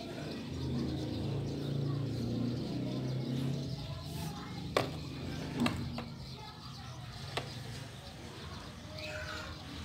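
A low steady background hum, with a few sharp light clicks a little past halfway as candies and marshmallows are set down on the waffle maker's batter plate.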